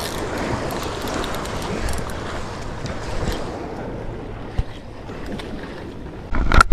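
Small waves washing over the rocks at the water's edge, with wind buffeting the microphone. A sudden loud bump near the end.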